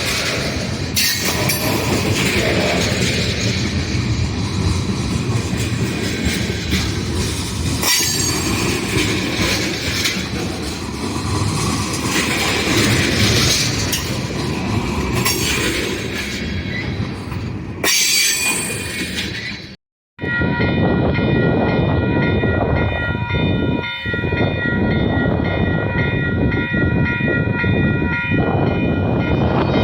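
Buffalo Southern Railroad's Alco RS-11 diesel locomotive and its train rolling along the track with a loud, dense rumble. After a sudden cut about two-thirds of the way in, the locomotive's horn sounds one long chord of several steady notes, held for about eight seconds.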